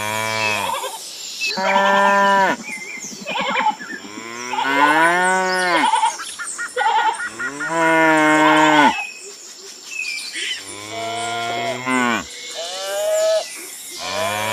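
Cattle mooing: a run of about six long moos, one after another, each rising and falling in pitch.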